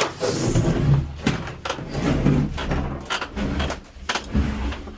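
A refrigerator being moved and manoeuvred by hand: a low rumble with irregular knocks and clatters as it shifts and bumps.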